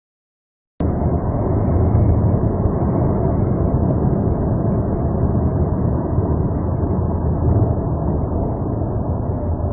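Steady low road rumble heard from inside a car driving at highway speed, starting suddenly about a second in after a brief silence.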